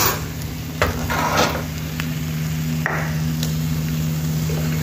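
A metal utensil scraping and tapping against a small frying pan of fried eggs, a handful of separate knocks and short scrapes, over a steady low hum.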